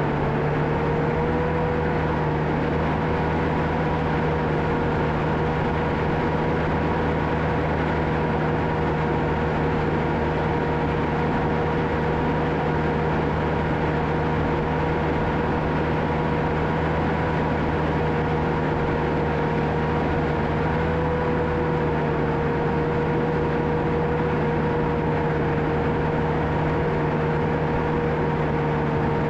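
John Deere 650K crawler dozer's diesel engine running steadily under work, with a steady whine over the engine note.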